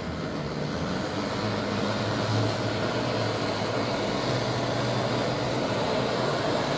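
Handheld butane kitchen torch burning with a steady hiss of flame as it sears sushi on a plate, louder from about a second in, over a low hum.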